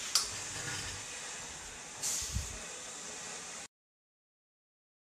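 Handling noise from a camera being carried: a sharp click just after the start, then a rustle and a dull thump about two seconds in, over a steady hiss. The sound then cuts off to dead silence where the recording breaks between takes.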